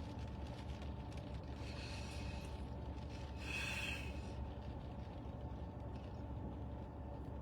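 A person's audible breath, a short hiss of air about three and a half seconds in, with a fainter one a little before it, over a steady background hum.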